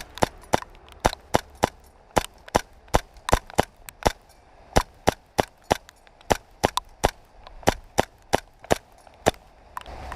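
A run of sharp, irregular clicks or taps, roughly three a second, over a quiet background.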